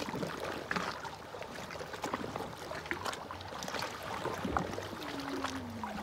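Small sea waves lapping and splashing irregularly against a rocky shore, with a faint steady low hum underneath.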